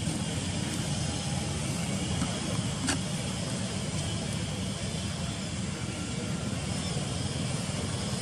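Steady low rumble and hiss of outdoor background noise, with a single short click about three seconds in.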